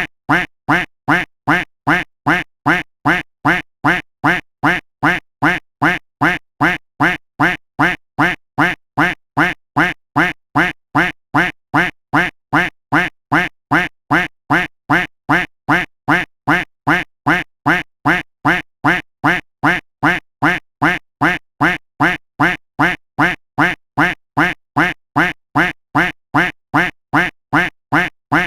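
A duck quack sound effect looped over and over: the same short quack repeated at an even pace of about two a second.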